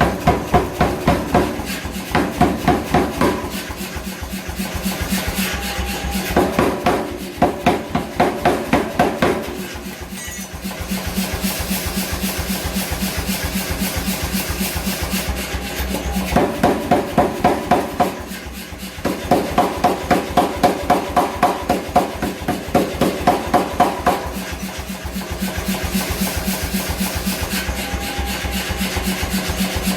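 Repeated hammer blows forging a hot wrought iron billet, about four a second, in bursts of a few seconds with short pauses between, over a steady machine hum.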